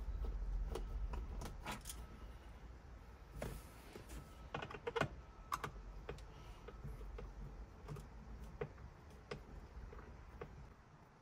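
Phillips screwdriver backing out the screws of a Toyota Highlander sun visor mount: scattered, irregular light clicks and ticks of the tool and screw against the plastic mount.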